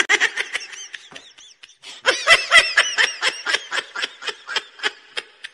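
High-pitched laughing in quick short bursts, thinner at first and coming about four or five times a second from about two seconds in.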